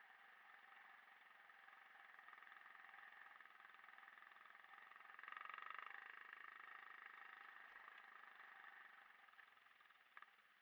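Faint motorcycle engine running steadily, growing louder about halfway through and then fading away, with a single short click near the end.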